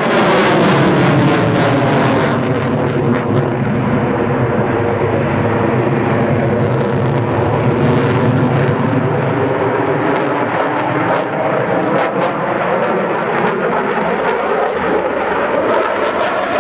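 Eurofighter Typhoon fighter jet's twin EJ200 turbofan engines, loud and continuous as the jet flies its display overhead. The tone sweeps slowly down over the first half and rises again near the end as the jet moves across the sky.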